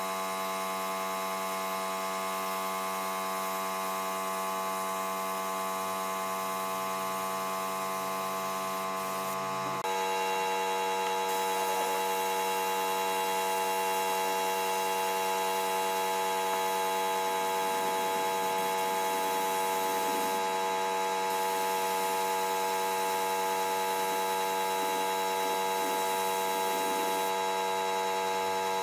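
Gravity-feed air spray gun hissing as it sprays finish, over a steady machine hum. About ten seconds in, the hum changes and gets slightly louder.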